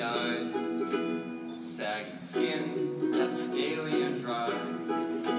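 Ukulele strumming chords, amplified over a hall's PA system.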